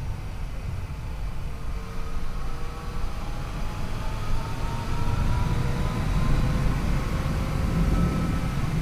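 Yamaha FJ-09's three-cylinder engine running under way with heavy wind noise; its pitch climbs slowly as the bike accelerates, and it gets louder about five seconds in.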